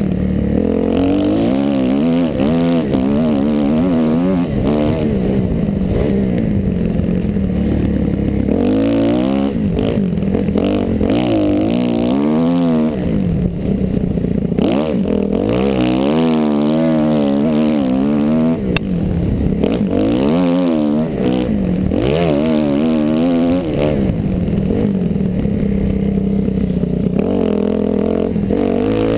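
Kawasaki KX dirt bike engine revving up and down over and over as the rider works the throttle along the trail, heard close up from a helmet-mounted camera.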